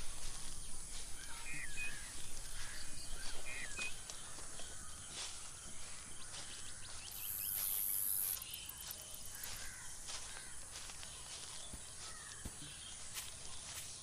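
Tropical forest ambience: birds calling in the first few seconds over a steady high drone of insects, with a louder, higher insect buzz for about a second from roughly seven seconds in.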